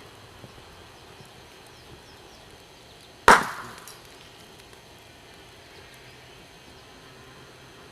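A single loud, sharp crack a little over three seconds in, dying away within a second, over a faint background with a few small ticks.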